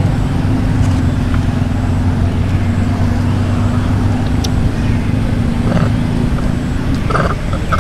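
A motor vehicle's engine running steadily, a low hum that fades out about seven seconds in. Two brief, faint higher sounds come near the end.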